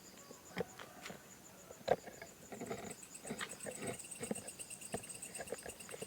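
Insects chirping in steady, evenly pulsed high trills, with a second chirping insect joining about three seconds in. Scattered knocks and rustles sound close by, the sharpest about two seconds in.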